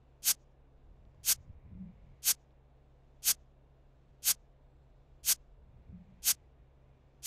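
Quiz countdown-timer sound effect ticking evenly about once a second, sharp clock-like ticks over a faint steady low hum.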